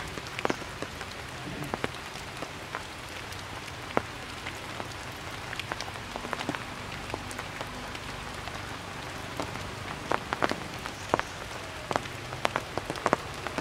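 Steady rain falling on a leafy tree: a constant hiss with individual drops striking close by as sharp, irregular ticks, several in quick succession near the end.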